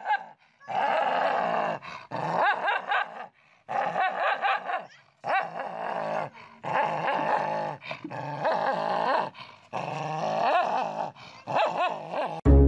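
A dog growling and snarling at its own reflection in a mirror, in about eight bouts of a second or so with short pauses between them: an aggressive threat display.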